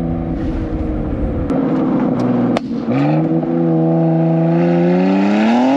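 BMW X3 M Competition's twin-turbo straight-six, stage-1 tuned and running without its particulate filter or mid-pipe, pulling hard under acceleration. Two sharp exhaust cracks come about a second and a half and two and a half seconds in. Then a lower engine note climbs steadily in revs, rising faster near the end.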